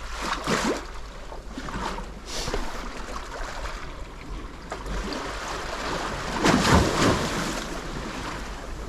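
Sea waves breaking and washing on the shore, with wind on the microphone; a bigger wave surges in about six and a half seconds in.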